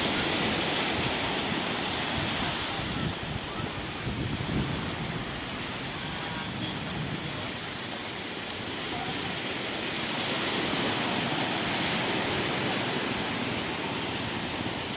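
Sea surf washing onto a beach: a steady rush of water noise that swells, eases off through the middle and swells again.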